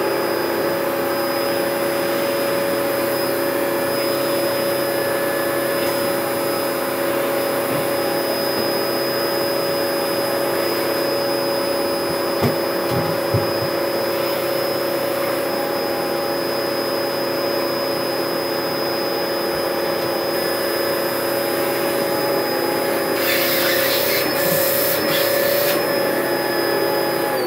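Dyson DC01 dual-cyclone upright vacuum cleaner running steadily with a constant motor whine while vacuuming. A few short knocks come about halfway through.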